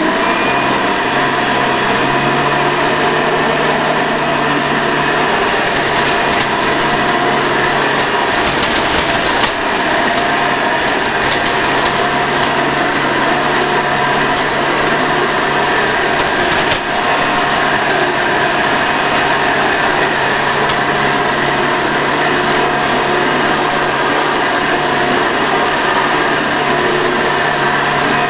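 Hoover Convertible upright vacuum cleaner running steadily at full power: an even motor hum and airflow whine that holds level throughout.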